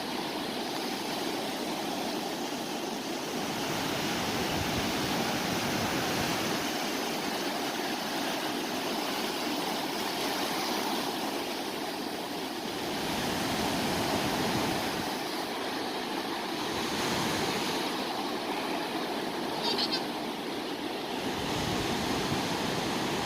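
Sea waves washing onto the shore: a continuous rush of surf that swells and eases every few seconds, with a brief high chirp about twenty seconds in.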